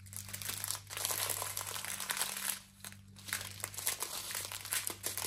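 Plastic crinkling as hands handle the plastic-covered diamond painting canvas. It comes in two stretches of fine crackling with a short pause about two and a half seconds in, over a steady low hum.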